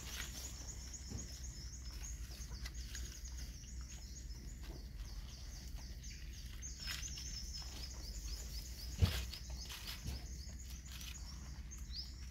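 Outdoor rural ambience: a steady, high chirping of small calls repeated rapidly, over a low background rumble, with a single thump about nine seconds in.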